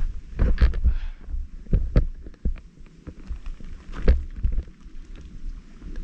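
Irregular low thuds and sharp knocks, several a second and unevenly spaced: handling noise and footfalls on rock as the camera is carried up a boulder scramble.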